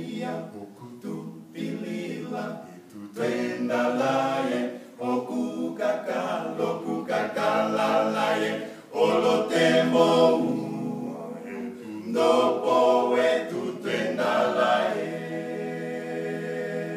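A male a cappella group of five voices singing an African gospel song in harmony, with no instruments. The phrases swell and break off briefly between lines.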